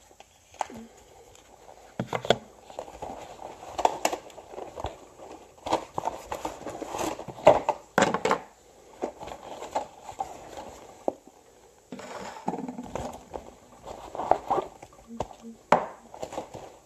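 Makeup products and cardboard packaging being handled and pulled out of a cosmetics case: scattered clicks and knocks with rustling.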